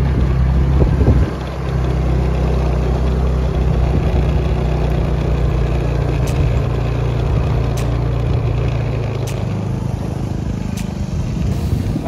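Motor scooter engine running steadily while riding, with a broad rush of wind and road noise over it; the engine note eases off near the end.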